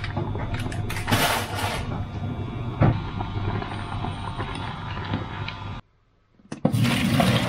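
A saucepan of noodles at a rolling boil on an induction hob: bubbling water over a steady low hum, with a few clinks of the pot. After a short break near the end, the pot's water starts pouring into a metal sieve in a steel sink.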